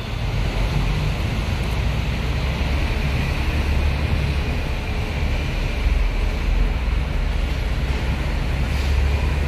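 Large diesel engine running steadily with a low, unbroken rumble.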